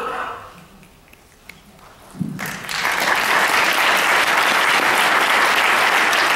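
Audience applauding: a crowd's clapping breaks out about two and a half seconds in and holds steady.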